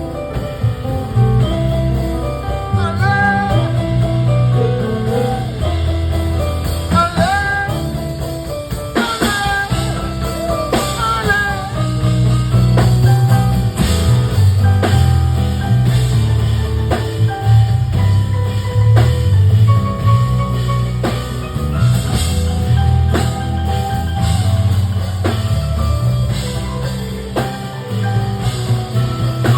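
Live band music without recognisable words: a drum kit keeping the beat over a heavy bass line, with short melodic lines above.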